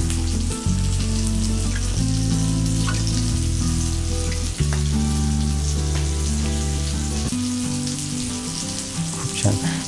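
Stuffed pomfret shallow-frying in oil in a pan on a low flame: a steady sizzle with small crackles. Under it runs background music of sustained low notes that change every second or two.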